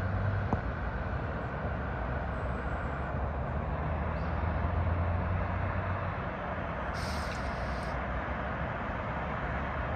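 Steady hum of distant city traffic heard from high up, with a low rumble that swells about four to six seconds in and a short high hiss about seven seconds in.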